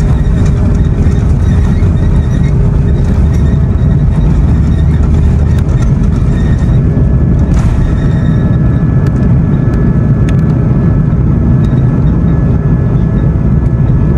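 Airbus A330-300's Rolls-Royce Trent 700 turbofans at takeoff power, heard inside the cabin by the window over the wing: a loud, steady jet engine noise with a few steady fan tones over a heavy rumble. The deepest rumble eases a little over halfway through as the airliner leaves the runway and climbs.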